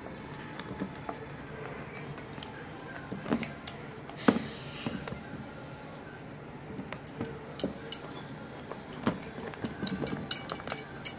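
Spatula stirring thick whipped-cream ice-cream mixture in a stainless steel bowl, with scattered light clinks and knocks against the bowl's side. The clinks come more often near the end.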